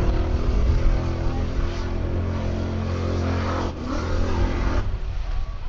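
Formula Offroad buggy's engine revving hard under load as it churns through a river crossing, with the rush of water spray over it. The engine sound breaks off abruptly a little before four seconds in, comes back briefly with a rising rev, and drops away near the end.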